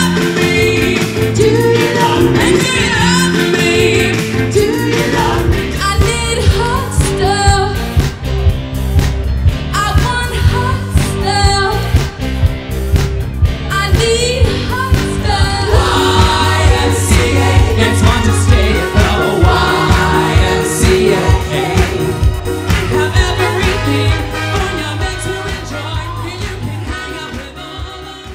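Upbeat Motown-style soul song with a lead vocal and backing voices over a band with a steady beat, fading out over the last few seconds.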